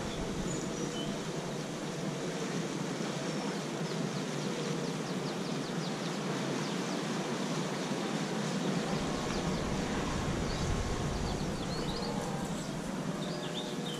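Steady outdoor ambience: an even rushing noise with a few faint high bird chirps.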